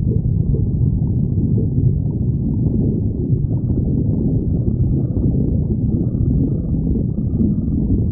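A hungry person's stomach growling: low, continuous rumbling and gurgling without a break.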